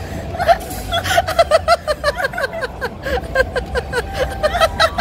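People laughing in quick, repeated bursts of short "ha" sounds, with faint background music underneath.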